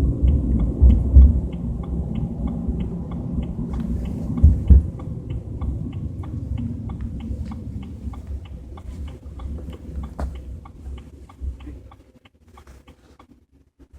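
A car's turn-signal indicator clicking steadily, about two clicks a second, over the low rumble of the BMW 320i heard inside the cabin. The rumble is strongest in the first few seconds, then fades away about twelve seconds in as the car slows and stops.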